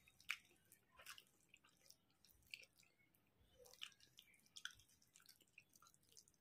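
Faint, close-up eating sounds: scattered wet clicks and smacks of chewing rice and curry, with fingers squishing and scraping rice on the plate.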